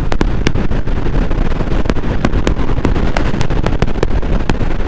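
Indian Chief Bobber's 116 cubic-inch V-twin running steadily at highway cruising speed, mixed with wind rush on the microphone and scattered irregular sharp clicks.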